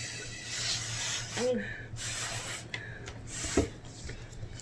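Breath blown through a plastic drinking straw in a series of airy puffs, pushing runny watercolour paint across paper into tree branches.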